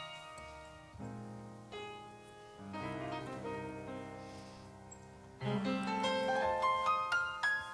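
Grand piano played solo: slow, soft chords that ring out, then louder playing with quicker notes from about five and a half seconds in.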